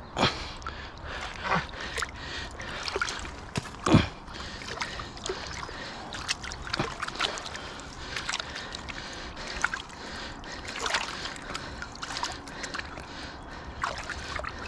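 Water splashing and sloshing while a large pike is landed at the water's edge, with irregular splashes and the sharpest ones just after the start and about four seconds in.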